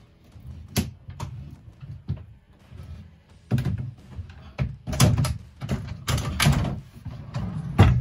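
An IKEA Malm chest drawer being slid in and out along its runners, its plastic roller wheels rumbling on the rails, with wooden knocks and thuds as it catches and is pushed home. A few light knocks come first, then several louder rolling-and-thud strokes from about halfway in.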